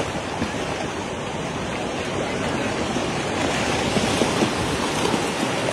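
Shallow water splashing and churning as a beach seine net is dragged ashore with small tuna thrashing inside it, a steady wash broken by many small splashes.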